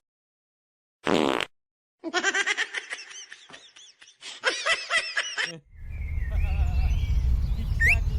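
A short buzzing fart sound about a second in, followed by a few seconds of choppy pitched bursts like laughter, then a loud low rumbling noise near the end.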